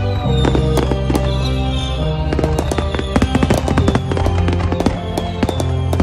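A live synth-pop band playing, with a Roland AX-Synth keytar, accordion and bass carrying held notes, while fireworks crack and bang over the music. The fireworks' sharp reports come throughout, with a thick cluster of bangs about halfway through.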